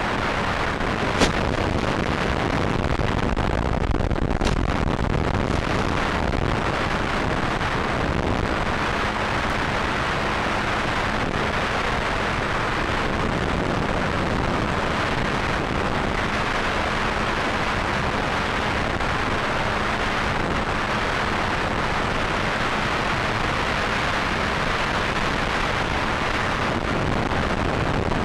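Steady rushing wind noise on a moving onboard camera's microphone, with a sharp click about a second in and a fainter one a few seconds later.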